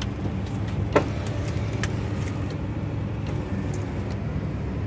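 Subaru's tyres crunching through a thick crust of ice over snow at low speed, over the car's steady low rumble, with sharp cracks as the crust breaks, the loudest about a second in.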